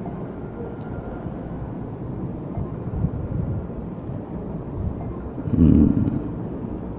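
Steady low rumble of room noise picked up by a microphone, with a short, louder low sound about five and a half seconds in.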